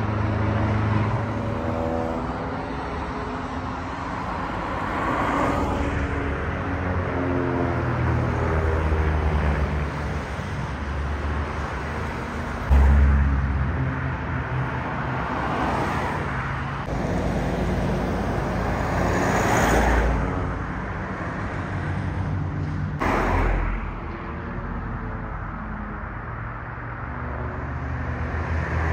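Piston engines of a formation of propeller aerobatic aircraft droning overhead; their pitch slides as they pass and the sound swells and fades several times. A sudden low thump comes about halfway through.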